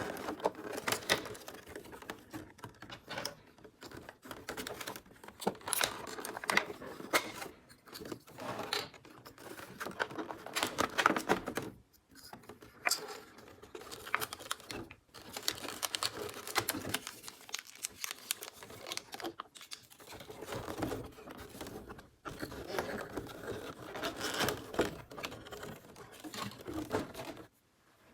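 Hands unboxing a miniature plastic toy kitchen set: packaging crinkling and tearing, with quick light clicks and taps of small plastic pieces, broken by a few short pauses.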